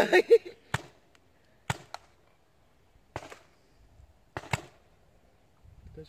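Paintball markers firing single shots: about seven sharp pops at irregular intervals, two of them close together near the start and near the middle.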